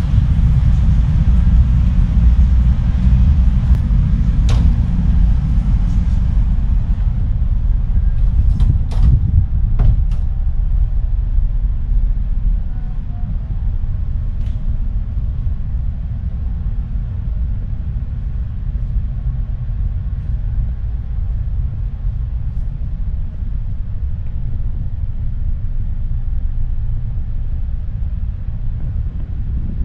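Steady low rumble of the Starlite Pioneer ferry's engines, heard on board. A few sharp knocks come about four and nine seconds in. The upper hiss fades after about seven seconds, as the sound moves from the open side deck into the enclosed cabin.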